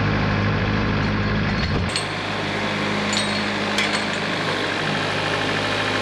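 Wood-Mizer LT70 portable sawmill's engine running steadily, with a few light clicks about three to four seconds in.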